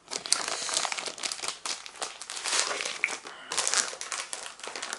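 Close crinkling and rustling with short sharp clicks, from a small dry-erase slate being handled.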